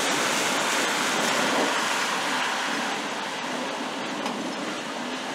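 Steady rain falling on leaves and wet pavement, an even hiss that eases a little near the end.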